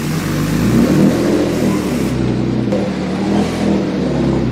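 Turbocharged BMW M50 straight-six in a BMW E36 running steadily, heard at the tailpipe. It is running rich, flooding fuel, because fuel pressure is about a bar too high.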